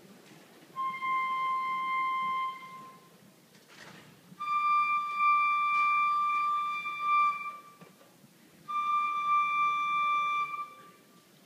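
A single wind instrument of a concert band plays three long held notes, one after another with short pauses. The second note is the longest, and the last two are slightly higher than the first.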